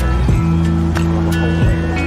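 Background music: held low notes and tones with short percussive strikes.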